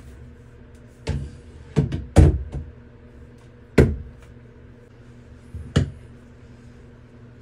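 A shower head and its fittings knocking and clacking as it is handled and threaded by hand onto the shower arm: about five sharp, short knocks at uneven gaps, the loudest about two seconds in.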